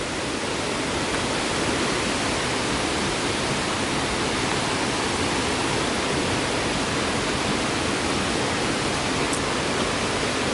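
Steady, even rush of water along the waterfall trail.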